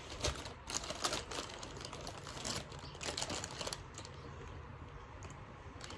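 Paper fast-food bag rustling and crinkling as a hand reaches into it and handles what's inside, busiest in the first few seconds, then quieter and sparser.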